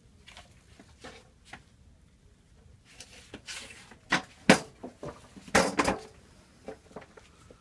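Scattered small clicks, then a cluster of sharp knocks and clatter between about four and six seconds in: tools and parts being handled on a workbench.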